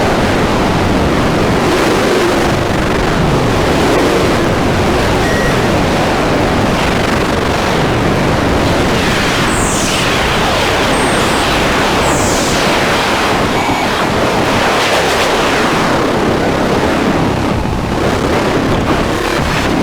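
Harsh noise music: a loud, dense wall of noise with many sweeping, sliding tones running through it, and brief high falling squeals about ten and twelve seconds in.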